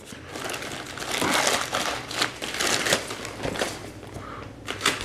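A plastic poly mailer crinkling and rustling as it is handled and opened and a manga volume is pulled out, with scattered sharp clicks; busiest about one to two seconds in.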